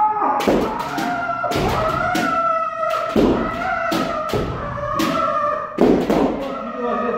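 Kendo strike drill: players holding long kiai shouts while a quick series of sharp cracks and thuds, bamboo shinai hitting the men and feet stamping, cut through them about a dozen times.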